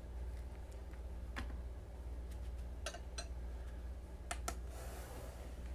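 About five light, sharp clicks, scattered and unevenly spaced, from small hard objects being handled, with a brief soft rustle near the end, over a steady low hum.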